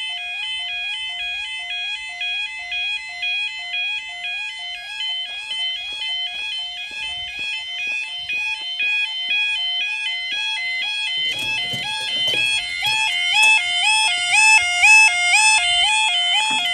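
Level crossing warning alarm sounding a two-tone alternating warble, about two pitch changes a second. About eleven seconds in a second alarm with a slightly different pitch joins, out of step with the first, along with some low rumble.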